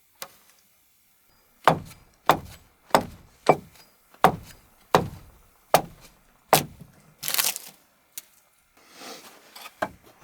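About eight heavy, evenly paced blows on wood, roughly one every 0.6 seconds, like chopping or splitting with an axe, followed by a short crunching clatter and a few lighter knocks.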